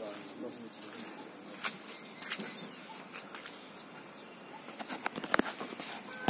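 Steady high-pitched insect chirring, as of crickets, with scattered footsteps and taps on stone steps, including a cluster of sharper taps about five seconds in.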